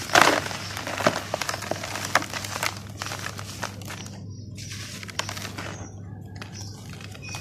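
Dry moulded red-dirt pots crumbled and crushed by hand in a plastic basin: a loud gritty crunch as one breaks apart at the start, then scattered crackling of dry soil and falling grit, thinning out after about four seconds.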